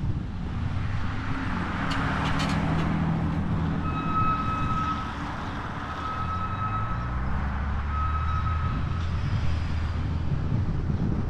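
A vehicle's reversing alarm beeping three times, each beep about a second long and two seconds apart, over a running engine and wind on the microphone.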